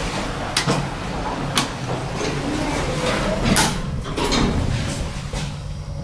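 Hitachi traction elevator (Build Ace Quality 80 II) car doors sliding closed after a floor button is pressed, with three sharp clicks over a steady low hum.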